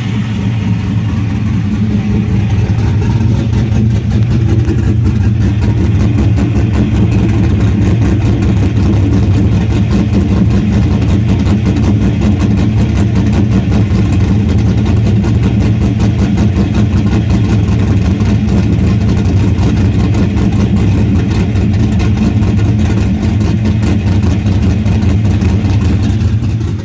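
2002 Camaro SS with a swapped-in LQ9 6.0-litre V8, rebuilt with new heads and an aftermarket cam and not yet tuned, running steadily at idle.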